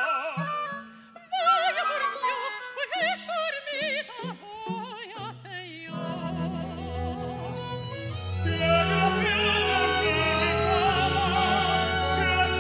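Operatic tenor singing in short phrases with wide vibrato, in Spanish zarzuela style. About six seconds in, a string orchestra comes in with sustained chords and a low bass line. It grows fuller and louder a couple of seconds later under a melody with vibrato.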